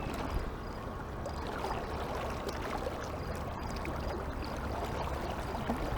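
Mountain stream water rushing steadily over the stream bed.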